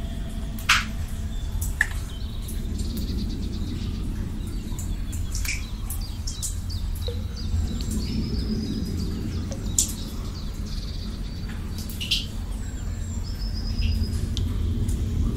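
Birds chirping and trilling over a steady low rumble of outdoor ambience, with a handful of sharp, bright ticks standing out every few seconds.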